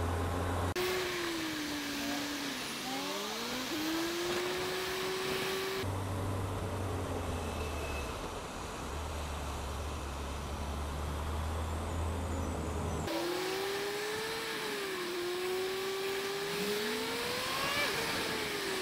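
Suzuki Bandit inline-four motorcycle engine running at low speed in traffic, its note rising and falling with the throttle over a steady hiss of wind and wet-road noise. For several seconds in the middle the engine note gives way to a low steady hum, then returns about 13 seconds in.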